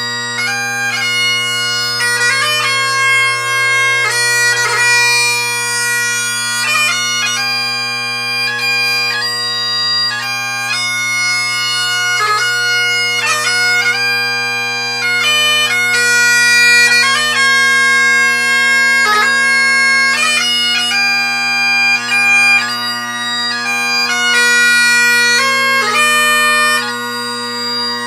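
Great Highland bagpipe playing a tune: steady drones sound under the chanter melody, which is broken by rapid grace notes. The pipes are McGillivray and Dunbar 'Robbie' drones with a Shepherd blackwood chanter and reed, blown through a sheepskin bag.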